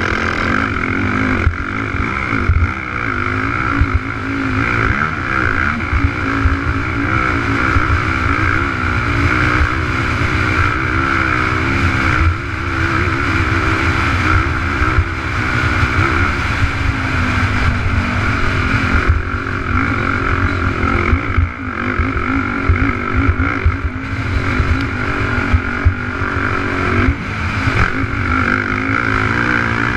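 Race quad's engine heard from a camera mounted on the machine at speed, its pitch rising and falling with the throttle, over a loud rush of wind on the microphone. Scattered knocks come from the quad hitting bumps in the dirt track.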